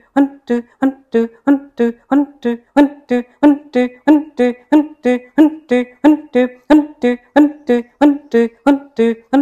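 Kapalabhati breathing: rapid, forceful pumped exhalations through the nose, each a short pitched puff with a silent passive inhale between, in a steady rhythm of about three strokes a second.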